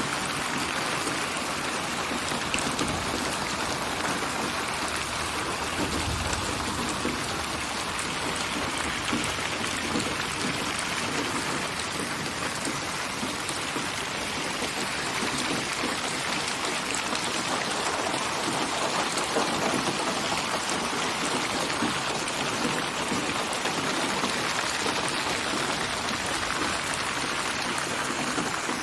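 Steady rain falling, a dense even hiss of drops on surfaces with no thunder, in a synthesised spatial (8D) rain ambience.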